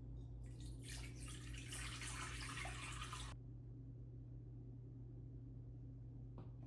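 Water running from a tap for about three seconds, then stopping abruptly, over a steady low electrical hum.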